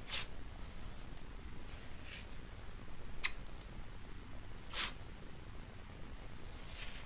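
White athletic tape being pulled off the roll and torn into strips: a few short rasps, the loudest right at the start and just before five seconds in, with a sharp click a little past three seconds.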